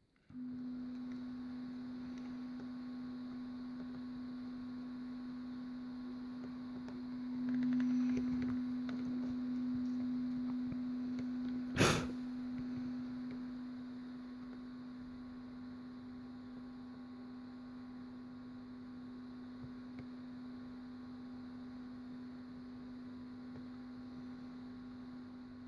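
Steady electrical hum with faint overtones, cutting in abruptly at the start, with one sharp click about twelve seconds in.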